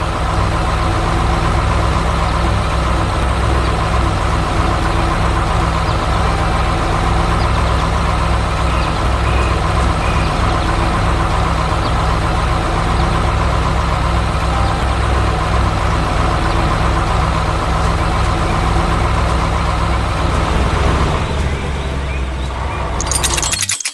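Heavy diesel engine running steadily, a loud low drone with a constant pitch. It eases off about 21 seconds in and cuts off abruptly just before the end, where a brief clatter begins.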